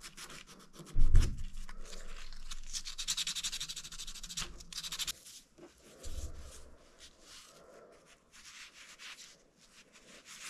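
A small turned wooden piece rubbed back and forth by hand on a sheet of sandpaper: a fast run of scratchy strokes, with a low thump about a second in. From about halfway it gives way to softer, sparser rubbing as the piece is worked with a cloth and paste finish.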